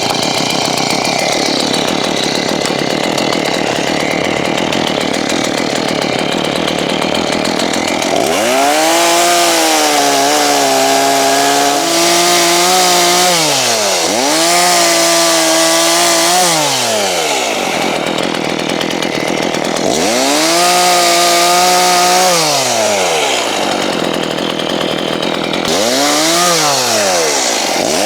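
Chainsaw running steadily at high revs for the first several seconds. After that it is revved up and let back down four or five times, its engine pitch rising, holding briefly and falling away each time.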